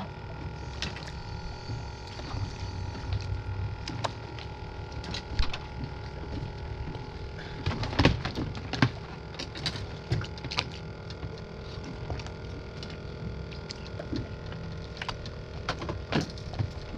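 Boat outboard motor idling with a steady low rumble, with scattered sharp clicks and knocks on top, the loudest about eight and nine seconds in.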